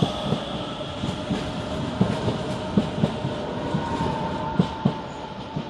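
Renfe Series 447 electric commuter train running, its wheels clicking irregularly over rail joints under a steady electric whine.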